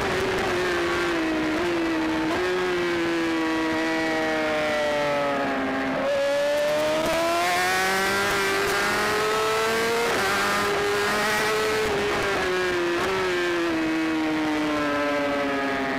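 Onboard sound of a racing superbike's inline-four engine at speed, over wind rush. Its pitch sinks, jumps up sharply about six seconds in, climbs again, then sinks near the end.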